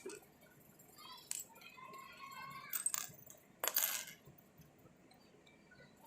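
A few short clinks and rattles of small hard objects being handled, the loudest and longest about four seconds in.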